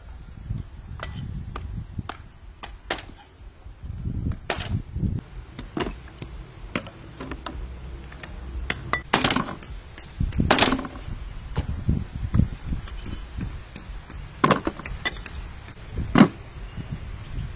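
Cleaver chopping through raw chicken on a wooden chopping board: a dozen or so separate strikes at irregular intervals, over a low rumble.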